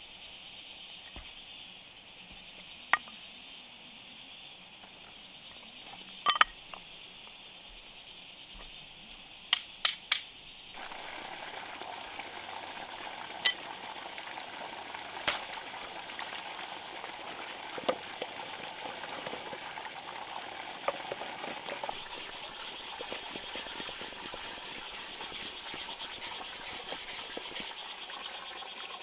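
Occasional single sharp knocks and taps, as in hand woodworking, over a steady high insect drone. The background suddenly grows louder and fuller about eleven seconds in.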